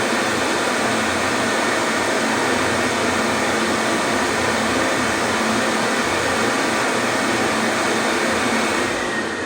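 Vintage 1986 Tew TCO 1500 ES push-button hand dryer blowing steadily. Near the end it cuts out and the fan motor starts to wind down, with a falling whine.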